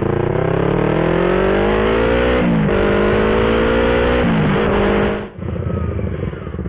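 Yamaha R25's parallel-twin engine accelerating through the gears. Its pitch climbs, drops sharply at an upshift about two and a half seconds in, climbs again and drops at a second shift a little past four seconds. After that it falls back to a lower, pulsing note.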